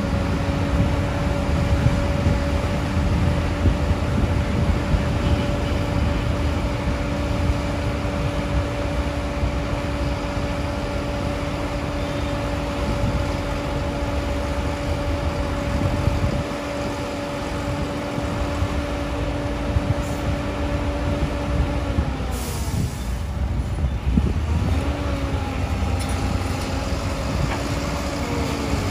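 A Hyundai 220LC-9S excavator's diesel engine and hydraulics running under load while it digs and loads sand. A steady whine over a low rumble sags about three-quarters of the way through, then picks up again.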